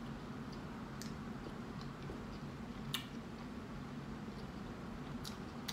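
Quiet closed-mouth chewing of a mouthful of burrito, with a few soft, scattered wet mouth clicks over a low steady hum.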